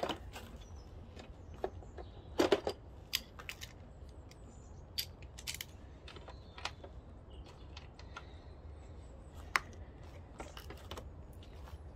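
Scattered small clicks, clinks and knocks of metal and plastic parts and tools being handled while a small four-stroke engine's carburettor side is put back together, with a louder knock about two and a half seconds in and a sharp click about three quarters through.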